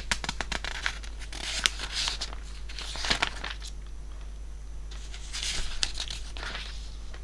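Paper rustling and light clicks, with short bursts of crinkling: pages being leafed through while a passage is looked up. A steady low mains hum sits under it.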